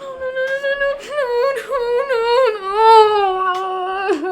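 A person's voice in one long, loud, wavering wail, with short sob-like catches in the middle and a slide down in pitch at the end.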